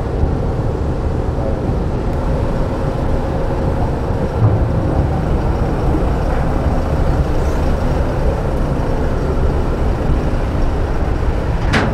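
Steady low engine rumble on a docked car ferry's vehicle deck, with a faint steady hum above it. A single sharp knock comes just before the end.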